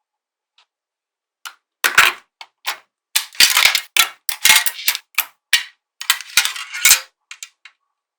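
Small magnetic balls clicking and snapping together as they are handled and built up, a quick irregular run of sharp clicks that starts about a second and a half in and stops near the end.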